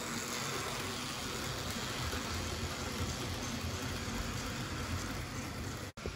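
Model railway diesel locomotive hauling a train of coal hopper wagons past on the track, a steady rumble of the motor and wheels on the rails. The sound breaks off abruptly near the end.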